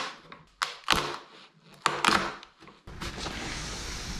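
Mallet striking a chisel in an air-dried oak beam, chopping out the sawn waste of a joint: about four sharp knocks with a short ring. Then a steady hiss for the last second or so.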